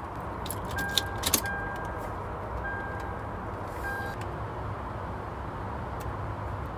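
Car keys clicking and jingling at the ignition of a 2003 Toyota 4Runner, with four short electronic beeps about a second apart, over a low, steady rumble.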